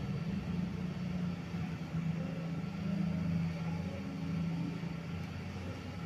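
National F-EY149 56-inch industrial ceiling fan running: a steady low motor hum.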